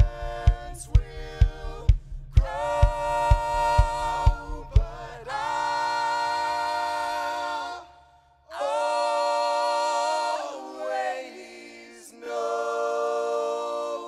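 Band singing in close multi-part vocal harmony, long held chords, over a steady drum beat of about two strokes a second. The drum stops about five seconds in, and the voices go on unaccompanied through three more long chords with short breaths between them.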